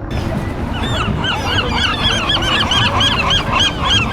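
A flock of geese honking, with many overlapping calls several times a second, starting about half a second in.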